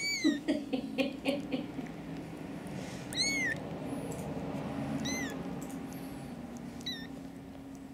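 Newborn kitten mewing: four thin, high-pitched cries spaced a couple of seconds apart, each rising and then falling in pitch.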